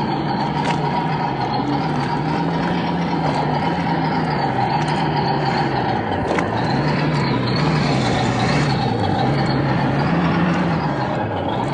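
Electric motors and gearboxes of radio-controlled scale crawler trucks whining, the pitch rising and falling with the throttle as they crawl over rocks, over the rush of a shallow river.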